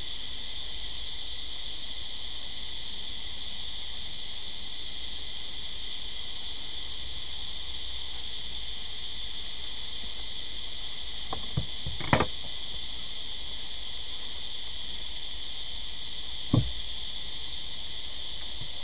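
A steady chorus of high-pitched insects, several held tones together, runs throughout. Over it come a few knocks about two thirds of the way in, the loudest near 12 s, and one more a few seconds later, as the nuc box is handled and its lid is put on.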